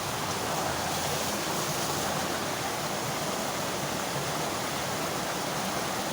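Flowing stream water rushing steadily and evenly.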